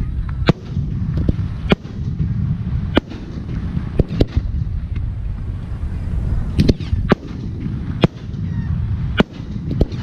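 Aerial firework shells bursting overhead: about a dozen sharp bangs at uneven intervals, some in quick pairs, over a steady low rumble.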